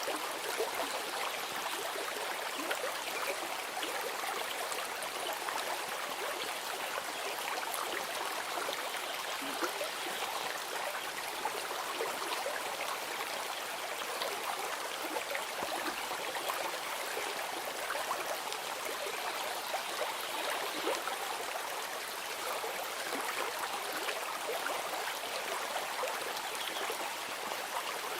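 Running water of a stream, a steady babble with small splashes and trickles throughout.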